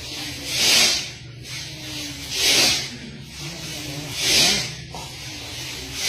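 A group of people forcefully blowing air out through the nose in unison, a loud hissing huff about every two seconds, three times with a fourth starting at the end; the kind of sound taken for sneezing or nose-blowing.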